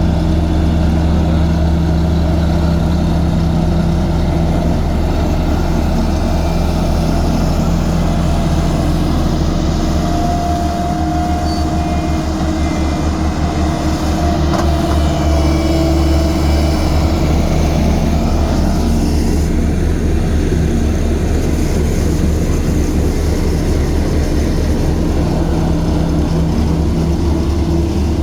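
Heavy diesel engine of earthmoving construction machinery running steadily. The engine note shifts a little in the middle.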